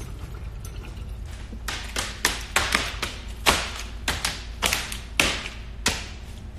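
A run of about fifteen irregular light taps and knocks, the loudest about three and a half seconds in, over a low steady hum.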